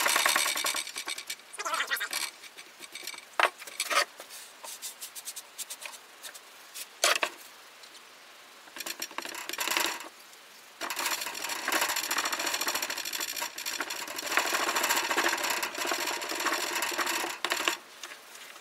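Molding sand being worked in a wooden flask: scattered knocks from a wooden sand rammer packing the sand, then about six seconds of steady scraping as the heaped sand is struck off level across the top of the flask.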